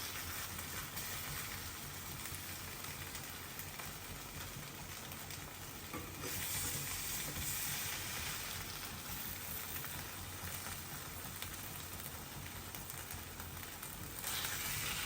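Chicken pieces sizzling in oil in the pan as they are stirred and scooped out, the sizzle swelling louder for a couple of seconds about six seconds in and again near the end.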